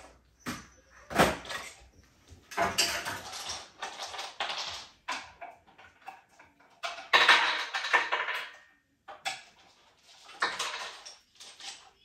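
Toys clattering and rattling as they are picked up off the floor and handled, in irregular bursts with short pauses, loudest about a second in and again around seven to eight seconds in.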